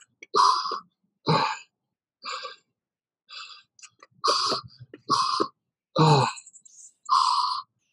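A man's short, forceful exhalations, about one a second, in time with the jumps of plank jacks: breathing hard from exertion. One breath about six seconds in is voiced, like a grunt.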